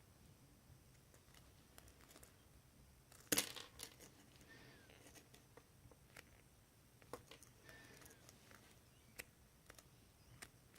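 Faint handling noises: scattered light clicks and rustling, with one louder knock a little over three seconds in.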